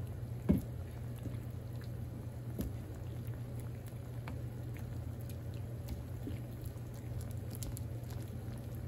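Cream sauce simmering in a skillet, with small bubbling pops and scattered ticks over a steady low hum. A single knock about half a second in.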